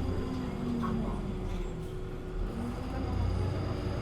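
Inside a MAN Lion's City A37 city bus on the move: the steady low rumble of the engine and drivetrain, with a running tone whose pitch dips and then climbs again about halfway through.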